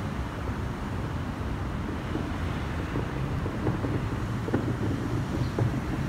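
Steady low outdoor rumble, like wind on the microphone or distant traffic, with a few faint short clicks in the second half.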